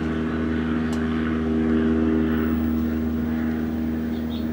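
GE Hotpoint tube television running with no programme sound: a steady low buzz and hiss from its speaker, the low-level vertical buzz that leaks through while the audio is dead. A broader rushing noise swells and fades over it about two seconds in.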